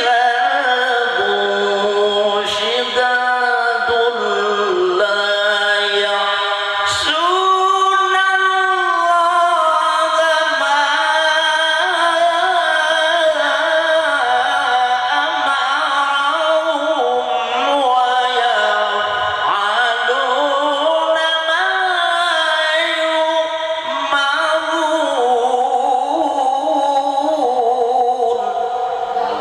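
A man reciting the Quran in the melodic mujawwad style, holding long ornamented phrases that rise and fall in pitch.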